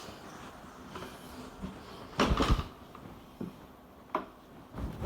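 A short, loud clatter about two seconds in, then a few lighter knocks, like a cupboard or door being handled.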